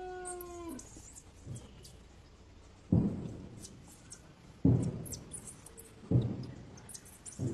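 A drawn-out, wavering macaque cry that slides down and stops under a second in, then faint high chirps and four dull thumps about a second and a half apart, the thumps being the loudest sounds.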